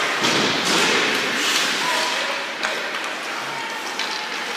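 Ice hockey game sounds in a rink: skates scraping the ice under a steady hiss, with sharp clacks of sticks and puck, three of them standing out, near the start, just under a second in and at about two and a half seconds.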